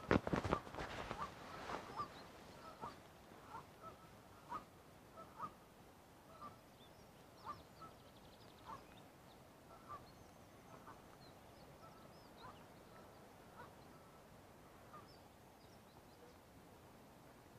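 Waterfowl calling with short honks, about one a second, growing fainter and dying out near the end. A few knocks and rustles come at the very start.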